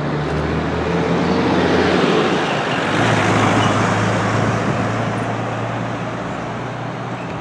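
A four-wheel-drive towing a trailer drives past, its tyre and engine noise swelling to a peak around the middle and then slowly fading.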